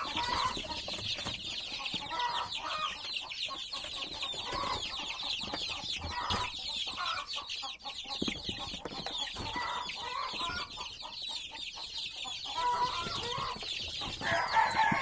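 A flock of young chickens peeping without a break: many short, high, falling cheeps overlapping, with lower clucking calls now and then. A few louder calls stand out near the end.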